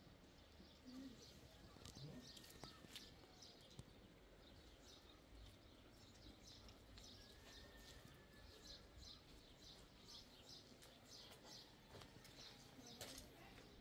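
Faint birds chirping: many short, high chirps repeating over a quiet background.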